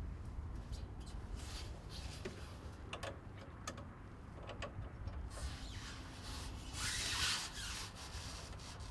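Excavator's metal service-compartment door being handled and opened: scattered clicks and rattles, with a longer scrape about seven seconds in, over a low steady rumble.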